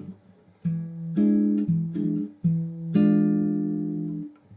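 Background music: acoustic guitar playing a few strummed chords, with a short pause about half a second in and a last chord ringing out near the end.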